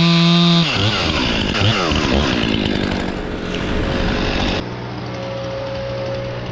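Chainsaw running. Its engine pitch holds high at first, then rises and falls several times, then settles steadier and lower about two-thirds of the way in.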